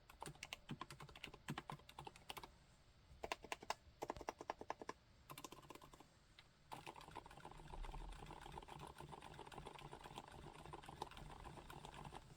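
Typing on a MONOKEI Standard mechanical keyboard with dampened Cherry MX Silent Red linear switches. Short bursts of quick keystrokes come first, then from about seven seconds in a fast, continuous run of keystrokes that stops near the end.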